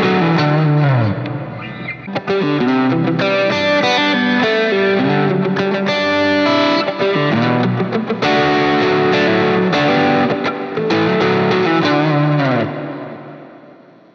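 Extended-range electric guitar played through a distorted lead tone, a melodic line with notes bent and sliding down in pitch. The last note rings out and fades over the final second or so.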